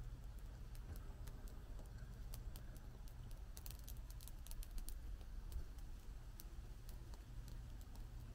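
Faint, quick sharp clicks in irregular runs, densest a few seconds in, from lighting a small outdoor gas burner, over a low steady rumble.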